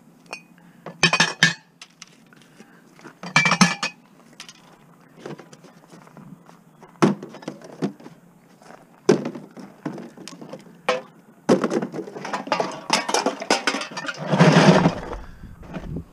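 Empty glass bottles and cans clinking and clattering as they are handled and dropped into plastic bins. There are single clatters every few seconds, then a longer jumbled clatter near the end.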